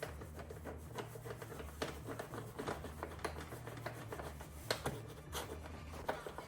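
Light irregular clicks and scrapes of a 10mm bolt being turned and wiggled by hand until it finds its thread through several layers of the tail tidy, over a low steady hum.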